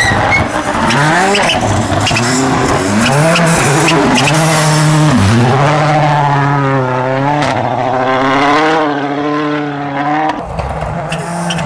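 Toyota Yaris WRC's 1.6-litre turbocharged four-cylinder rally engine at full throttle. The revs rise sharply several times through quick upshifts, drop briefly about five seconds in, then hold high and waver until a sudden change near the end.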